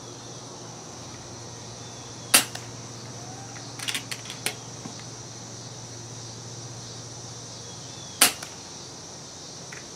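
Two shots from an FX Streamline .22 PCP air rifle fitted with a DonnyFL Sumo moderator on its lowest power setting, each a short sharp crack, about six seconds apart, metered at 61 and 65 dB. A few lighter clicks come between the shots.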